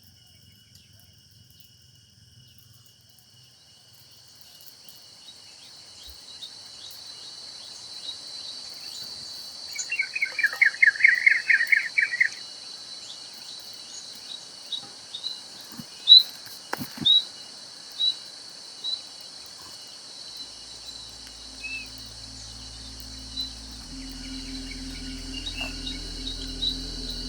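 Natural ambience: a steady high-pitched drone of insects, with a bird giving a rapid trill about ten seconds in and then a few sharp chirps. Low music fades in near the end.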